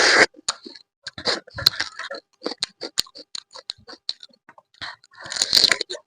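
Close-miked eating of crab: quick, irregular clicks and cracks of crab shell being broken and bitten, with a few louder crunchy bursts of chewing.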